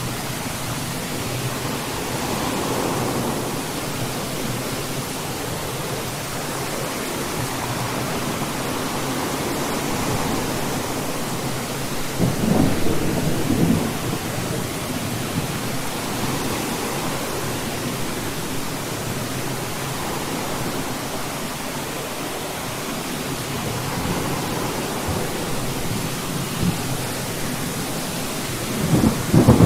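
Steady rain with thunder rolling through it. There is a louder crack of thunder about halfway through, and another begins near the end.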